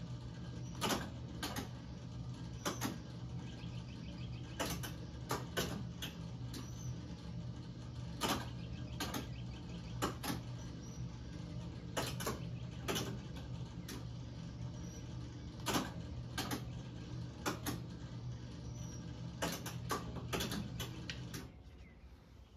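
1972 Midway Bullseye electromechanical dart game running, with a steady hum and sharp mechanical clicks, singly and in quick clusters, as its relays and score reels step the score up. The hum cuts off a little before the end.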